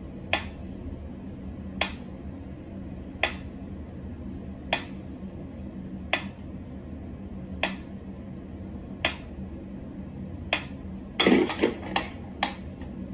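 Mechanical pendulum metronome ticking slowly and evenly, about one tick every second and a half. Near the end a short flurry of louder knocks and scuffs as the cat leaps at it.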